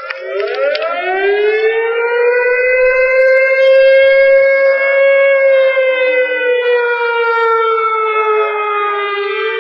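Civil defense siren sounding the nuclear attack warning: it winds up in pitch, holds a loud steady wail, and begins to drop near the end.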